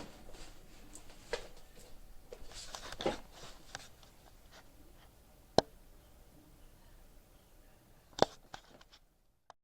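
Quiet handling-type noise: scattered soft knocks and rustles, with two sharp clicks about five and a half and eight seconds in. The sound cuts off to silence just before the end.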